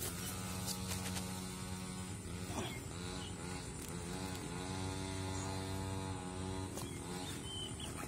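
A motor running with a steady hum, its pitch wavering and dipping briefly a few times.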